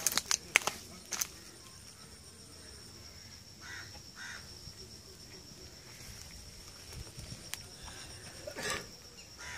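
A steady high insect trill, with a few sharp clicks in the first second and scattered rustles, as of steps on dry leaves and twigs.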